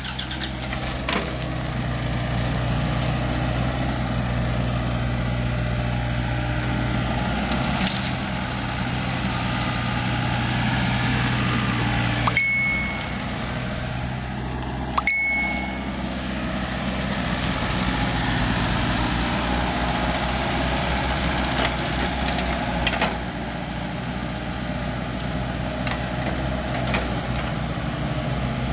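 Doosan mini excavator's diesel engine running steadily as it digs and loads soil, with a few sharp knocks from the work.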